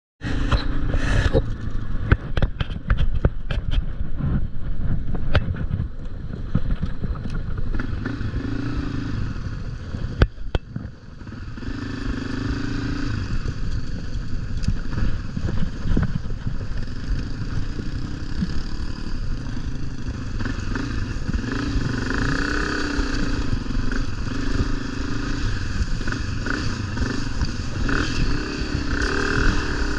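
A motor vehicle's engine running under load as it drives through a river. Many sharp knocks and clatters come in the first ten seconds, then a steadier engine note swells and eases.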